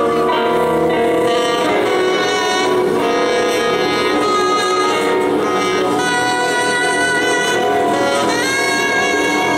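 Live band music from a soul-blues band: a sustained, singing electric slide guitar lead over drums and the rest of the band, with a slide up in pitch near the end.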